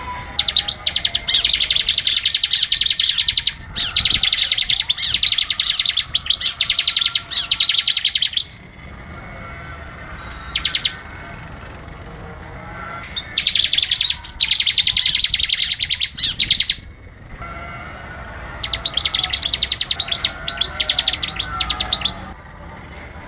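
Bar-winged prinia (ciblek) singing: bursts several seconds long of very rapid, high repeated chattering notes, with short pauses between them.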